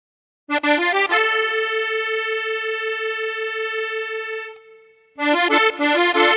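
Accordion in a cumbia: a quick run of notes, then one long held note with a fast pulsing shake that fades out about five seconds in, before quick runs of notes start again.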